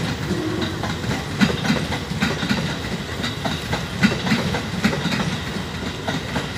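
KRL electric commuter train passing, its wheels clattering over rail joints in a run of repeated clicks over a steady low rumble.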